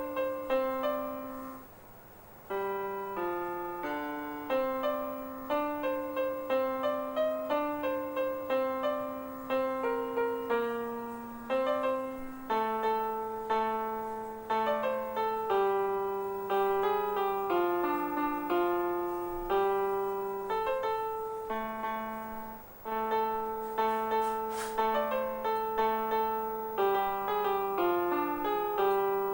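Background piano music: a gentle melody of struck notes over a lower accompaniment.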